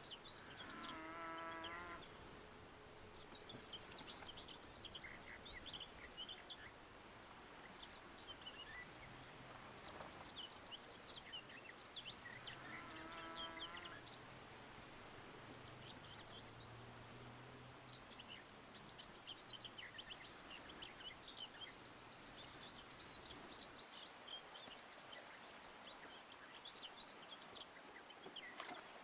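Birds chirping and twittering throughout against faint outdoor ambience. Two drawn-out, steady-pitched animal calls stand out, one near the start and one about 13 seconds in.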